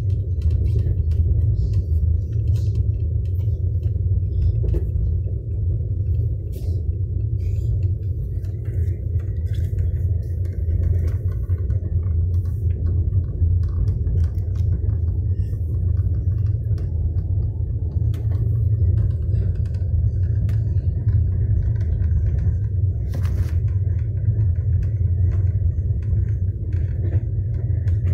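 Passenger train running, heard from inside the coach: a steady low rumble.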